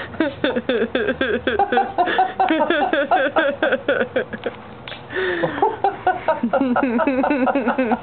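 People laughing hard in a long run of rapid, cackling chortles, with a short breathy sound about five seconds in.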